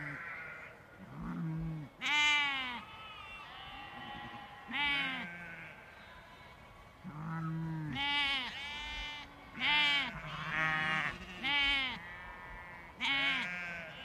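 A large flock of sheep and lambs bleating: deep, overlapping bleats and higher-pitched calls go on throughout, with a loud call every second or two.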